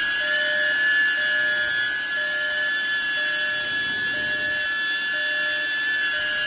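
Small ducted FPV drone's propellers whining steadily at several high pitches, with a drone detector's alert beeping faintly about once a second as it picks up the drone's signal.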